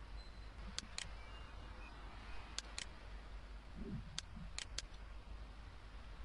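Computer mouse clicking faintly over a low steady hum: three quick pairs of clicks and one single click.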